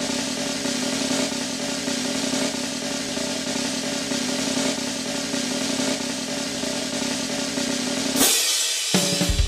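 Show music holding a sustained chord under a long snare drum roll, which ends in a cymbal crash about eight seconds in, the build-up before the birthday star is announced.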